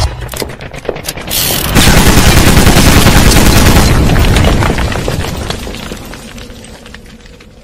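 Logo-intro explosion sound effect: a blast with dense crackling debris that swells about a second and a half in, stays loud for a couple of seconds, then slowly dies away.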